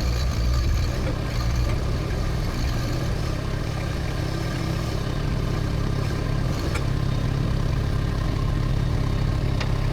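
Rippa RS06 skid steer loader's engine running steadily, with two short sharp clicks, one past the middle and one near the end.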